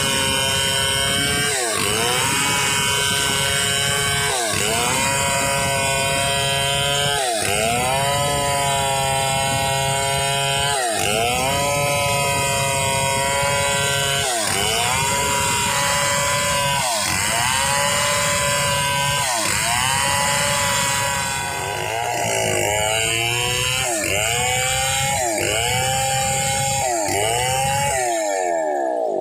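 Chainsaw ripping a red meranti log lengthwise. The engine runs at high revs and its pitch sags and climbs back again and again, about every two and a half seconds, as the chain bites and eases in the cut. Near the end the sags come quicker.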